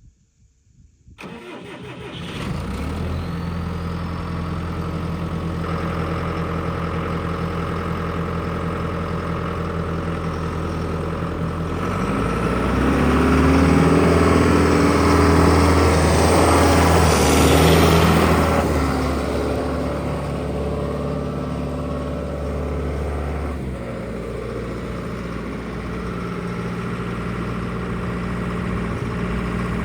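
John Deere 6430 tractor's 4045 turbocharged four-cylinder diesel starting about a second in and settling to a steady idle. About twelve seconds in it is revved up and held higher for several seconds, then drops back to idle.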